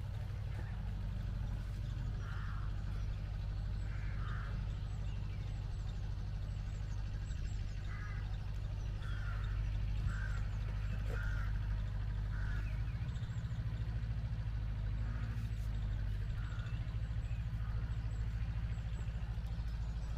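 Outdoor ambience: a steady low rumble, with birds calling at intervals, short calls coming every second or few seconds.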